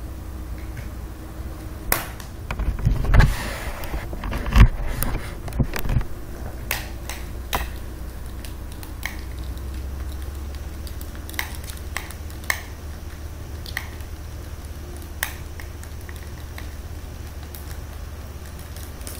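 Irregular sharp clicks and knocks over a steady low hum, busiest with a few louder knocks and some rustling in the first third, then sparser single clicks.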